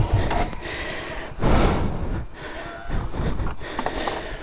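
Motorcycle engine straining on a steep dirt climb, a rough noisy rumble with a louder surge about a second and a half in, as the bike gets stuck on the slope.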